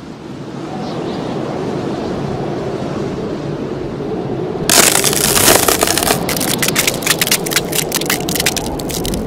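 Ice-cracking sound effect over a steady wintry wind rush: a sudden loud crack about five seconds in, then a run of sharp crackles as the ice breaks apart.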